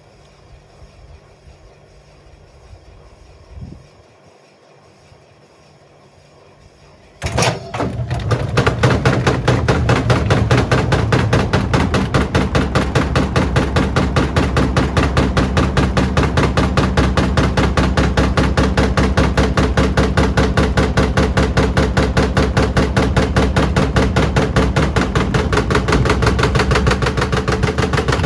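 Whirlpool washing machine drum spinning up with a 6-litre water bottle inside. About seven seconds in it starts suddenly into rapid, rhythmic, loud banging as the heavy bottle slams around the drum and against the glass door.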